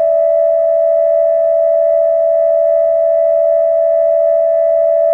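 Steady electronic alert tone held at one pitch without a break: an attention signal ahead of a public-address emergency announcement.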